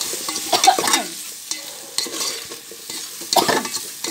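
Winged beans being stir-fried in a metal pan: a utensil scrapes and tosses them in about three strokes over a steady sizzle.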